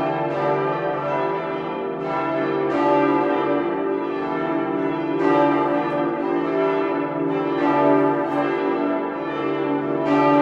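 Full peal of church bells: several large bells ringing together, their strokes overlapping into one continuous, steady clang, with a fresh stroke standing out every two seconds or so.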